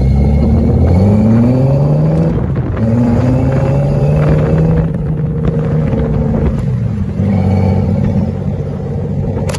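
Off-road vehicle engine running and revving, its pitch rising and falling several times over a steady low rumble.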